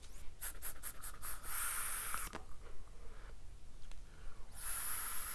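Vaping on an e-cigarette mod: a few quick ticks, then a hissing draw of breath through the atomiser lasting about a second; a second hiss of breath, about a second long, starts near the end as the vapour is blown out.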